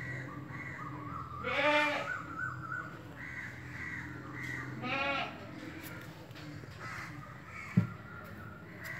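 Two wavering animal bleats, one about a second and a half in and one about five seconds in, with fainter short calls between them. A single sharp knock sounds near the end.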